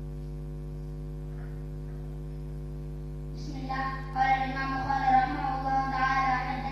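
A steady electrical mains hum, then about three and a half seconds in a high voice starts singing a melodic line over it.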